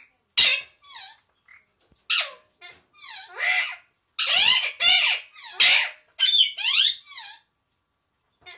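Two Alexandrine parakeets screeching: a string of loud, harsh calls, coming thickest between about four and seven seconds in, then falling quiet near the end.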